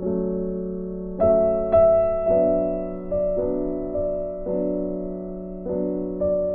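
Background music: soft piano chords, each struck and left to ring, changing about once a second.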